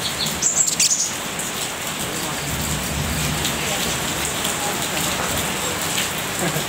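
A few short, very high-pitched chirps from a brown-throated sunbird about half a second in, then a fainter one later, over a steady hiss.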